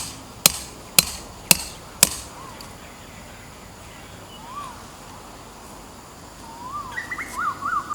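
A mallet driving tent stakes, five sharp strikes about two a second that stop about two seconds in. A bird then gives short rising-and-falling calls, more of them near the end.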